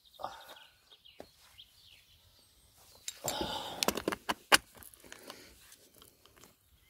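Clicks and clinks of a cheap electric chainsaw's parts being handled and fitted by hand, with a denser run of sharp clinks and rattling from about three to four and a half seconds in.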